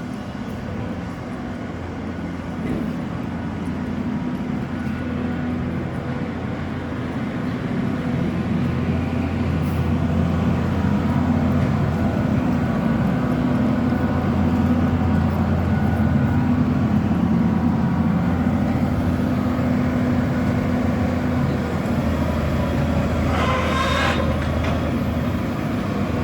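A heavy engine running steadily with a low hum, growing louder over the first dozen seconds, with a brief harsher noise near the end.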